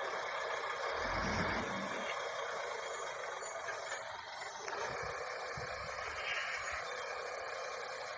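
Shantui SD16 bulldozer working: a steady, noisy machine sound, with a stronger low rumble about a second in.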